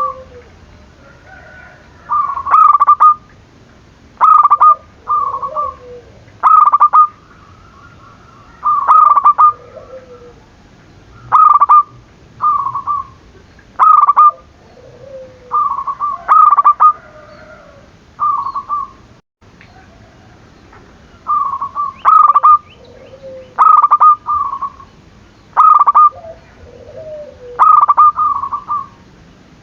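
Zebra dove (perkutut) in full song: a short cooing phrase of quick, clear high notes, then a lower falling coo, repeated about every two seconds.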